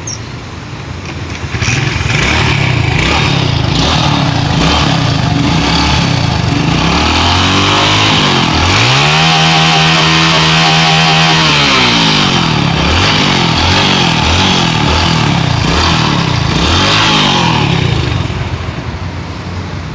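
Honda Pop 110i's small single-cylinder engine being revved by hand, several short blips and one long rev that rises and falls in the middle, settling back near the end. It runs with a freshly replaced camshaft bearing, cam chain and tensioner, fitted after the old cam bearing failed.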